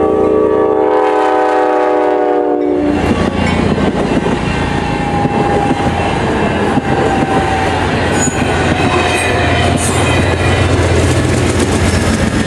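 A locomotive's multi-chime air horn sounds a chord that cuts off about three seconds in. It gives way to the loud, steady rumble and clatter of a train moving on the rails.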